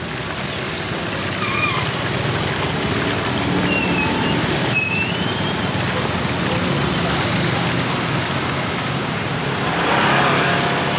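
Street traffic noise, with motor vehicles running steadily and a few brief high squeaks. Voices rise briefly near the end.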